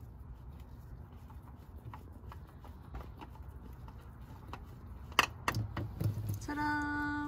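A spin-on oil filter twisted off by hand from underneath a car: a few sharp clicks and knocks about five seconds in as it comes free and is pulled down, over a low steady hum. Near the end a steady held tone takes over.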